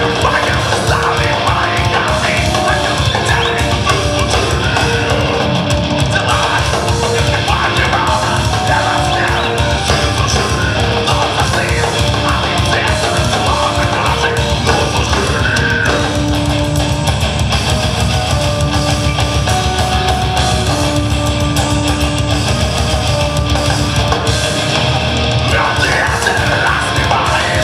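Gothic metal band playing live at full volume: distorted guitars and bass over dense, fast drumming, with sustained melodic notes from the keyboard, unbroken throughout.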